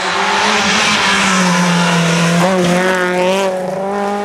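Citroën C2 R2 rally car's 1.6-litre four-cylinder engine held at high revs as the car approaches and passes. The pitch stays mostly steady with a brief dip about two and a half seconds in, over a hiss of tyres and loose gravel as it slides onto the dusty shoulder.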